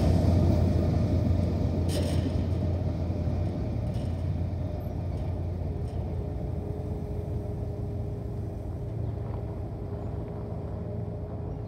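Rumble of a GE ET44AC diesel locomotive at the rear of a freight train, fading steadily as it moves away.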